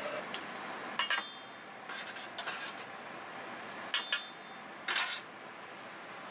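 Metal spoon clinking and scraping against a stainless steel mixing bowl: a few sharp clinks about a second apart, some with a brief metallic ring.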